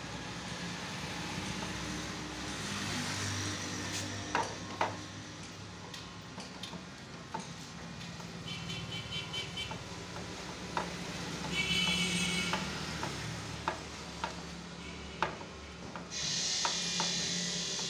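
A vinyl decal and its paper backing being handled on a motorcycle fuel tank: scattered light clicks and taps, then a crinkly paper rustle starting near the end, over a steady low hum.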